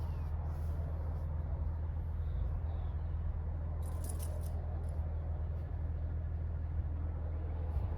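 Harbor Breeze Springfield 52-inch ceiling fan running steadily: a low hum with the rush of moving air, and a brief faint clicking about four seconds in.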